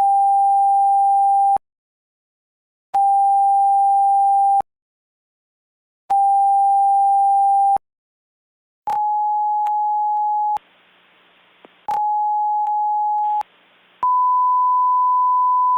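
Electronic alert tones of a mock Emergency Alert System broadcast: three long, steady beeps with short silent gaps, then two slightly higher beeps with a faint hiss between them, then a longer, higher steady tone that starts near the end.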